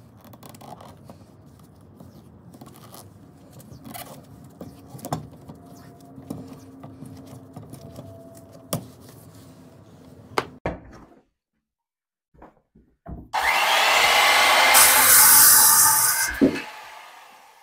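Gloved hands wrapping electrical tape around a power cord and its steel-mesh strain-relief grip: soft rubbing and crinkling with a few small clicks. About two-thirds of the way in, a circular saw starts suddenly and cuts through a wooden board for about four seconds, loudly, then falls away near the end.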